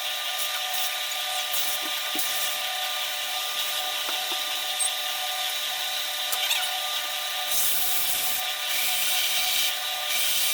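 Electric power sander running steadily on wood: a constant motor whine with a rubbing hiss that swells and eases as it works.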